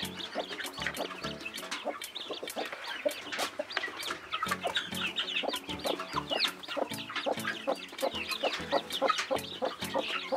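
Newly hatched chicks peeping in many short, falling notes, with a broody hen clucking low underneath.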